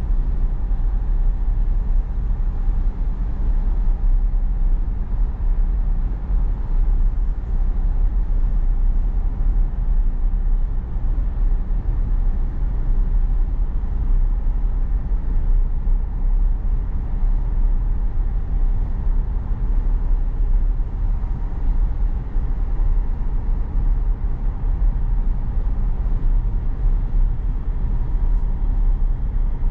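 Steady road and tyre rumble inside the cabin of a Tesla electric car on the move, heaviest in the deep bass, with no engine sound.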